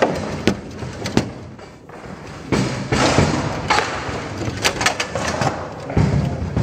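Table-football rally: the ball and rods give sharp knocks, one at a time, spread irregularly, as the ball strikes the players' figures and the table walls and the rods jolt.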